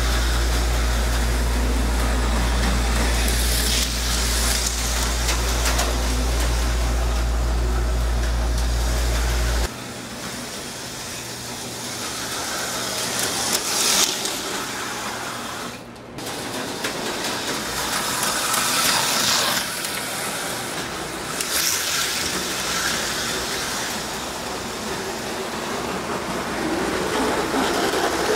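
Auto World Thunderjet HO slot cars, a '68 Camaro and a '62 Bel Air, racing past again and again: a small electric motor whine and track rattle that swells as each car passes and then fades. A steady low hum runs under the first third and cuts off abruptly about ten seconds in.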